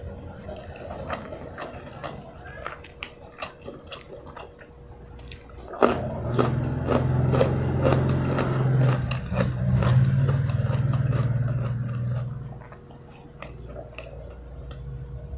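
Close-miked eating sounds: fingers pinching rice and chewing with the mouth closed, with small wet clicks and smacks. From about six seconds in, a louder low, steady hum runs for about six seconds under the chewing, then drops away.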